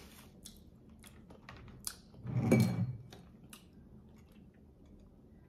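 Chewing crispy fried chicken: scattered faint crackles and mouth clicks, with one louder, short, low rush of sound about two and a half seconds in.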